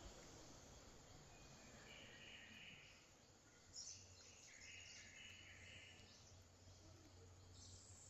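Near silence: faint outdoor ambience, with a few soft, high-pitched sounds that each last about a second.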